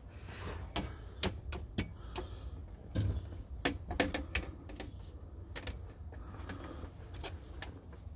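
Storm door's screen panel and frame being handled and fitted: an irregular run of light clicks and small knocks, clustered in the first half, then dying away.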